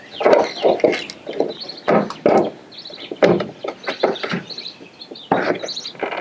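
Irregular hard plastic clicks and knocks as a gloved hand works the bulb socket inside a 2014 Chevy Silverado's open taillight housing.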